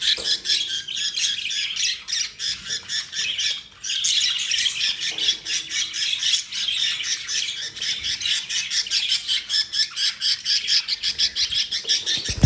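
Budgerigars squawking and chattering in rapid, harsh chirps, with a short lull about four seconds in: two male budgies squabbling for dominance.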